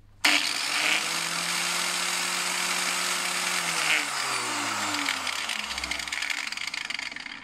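Homemade disc sander built from an old angle grinder with a sanding disc, switched on and running noisily with a steady whine and hiss. From about four seconds in its pitch falls away as it winds down.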